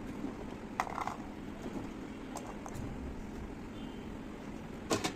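Garlic cloves being put on a kitchen scale for weighing: a few light clicks and knocks, with two sharper knocks near the end.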